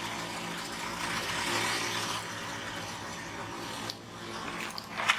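A car engine running as the car creeps forward, its tyre rolling slowly over concrete and flattening a pair of Pop-Tarts. A sharp click comes near the end.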